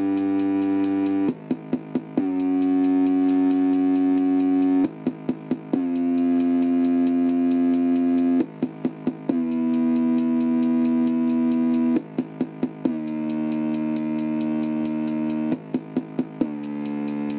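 Electronic bass-test music playing through an Orion CRT TV/VHS combo's built-in speaker: long held synth notes, each a little lower than the one before, broken up by quick groups of four short beats over a fast, steady high ticking.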